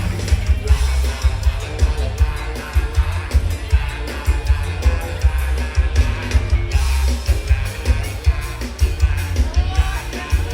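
Live band music with a heavy, steady bass-drum beat and singing.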